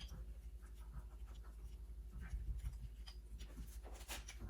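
Spark plug being threaded by hand into the cylinder head of a 1.8 L engine: faint scratchy clicks of metal turning on metal, over a steady low hum.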